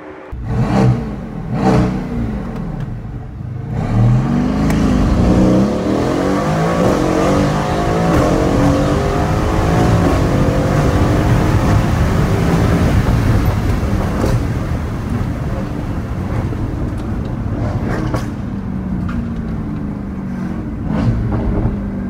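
Mercedes-AMG GT R's twin-turbo V8 through an aftermarket valved catback exhaust and catless downpipe. Two quick revs come first, then a hard acceleration with the engine note climbing in pitch for several seconds. It then settles into a steadier run, with a few sharp cracks in the later part.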